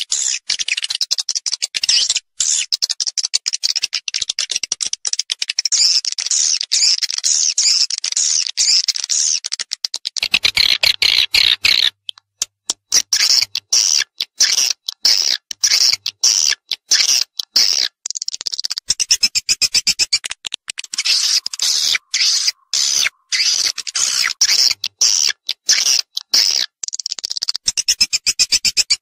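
Swiftlet call sound: rapid high-pitched chirps and twittering in dense stuttering runs that go on without a break. This is the lure call used to attract swiftlets to nesting houses.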